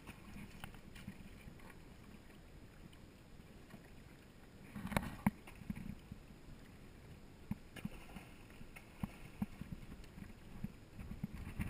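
Small waves lapping and slapping against a boat's hull, with scattered light knocks and a louder slap about five seconds in.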